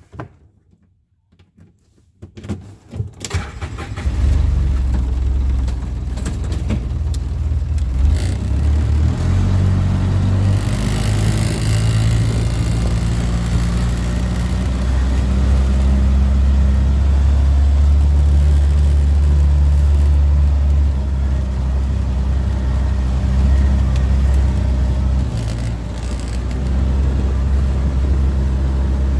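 A small vehicle's engine starting after a few clicks, about four seconds in, then running steadily with a few shifts in pitch as the throttle changes.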